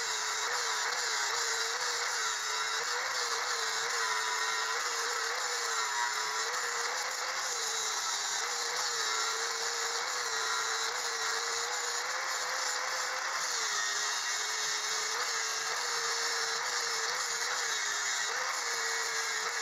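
Bosch angle grinder running continuously and grinding weld beads down flush on a steel body panel. A steady whine runs through the grinding noise, its pitch wavering slightly.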